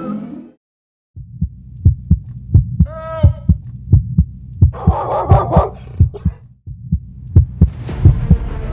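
Heartbeat-like soundtrack pulse: after a brief silence, low thuds in pairs, lub-dub, repeating a bit under a second apart. A short pitched whine comes about three seconds in and a brief noisy burst around five seconds.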